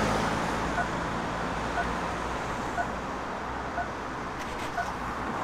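Pedestrian crossing signal giving a short beep about once a second, the slow locator rhythm of a signal on red, over steady road traffic. A passing car's rumble fades out in the first couple of seconds.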